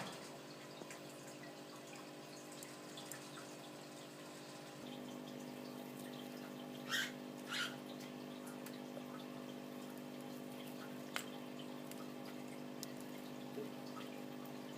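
A steady, quiet machine-like hum that gets louder about five seconds in, with two short high-pitched sounds close together about seven seconds in and a few faint clicks.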